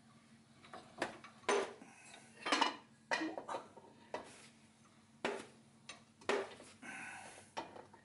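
Metal parts and hand tools clinking and knocking against a driveshaft's U-joint yoke held in a bench vise as a new U-joint is fitted: about eight sharp clinks, irregularly spaced, over a faint steady hum.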